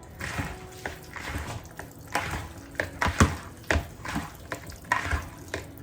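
Raw chicken thighs being worked by hand in olive oil in a bowl: irregular wet squelches and slaps, about two or three a second.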